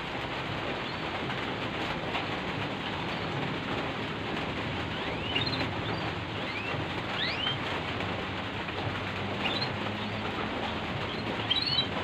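Steady hiss of falling rain, with a few short, rising bird chirps scattered through the second half.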